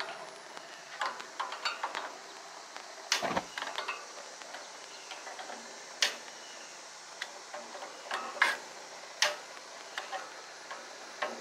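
A few separate sharp clicks and clacks at a gas grill's burners as it is lit by hand with a lighter, since the grill's push-button igniter does not work. The click about three seconds in is heavier and fuller than the rest.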